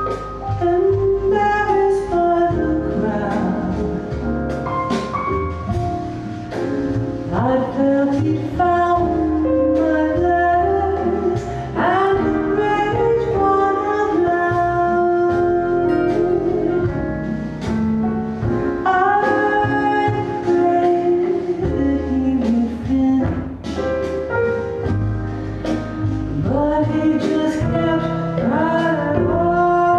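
Recorded song playing back through a home hi-fi stereo system: a singer over instrumental accompaniment, the melody gliding between held notes.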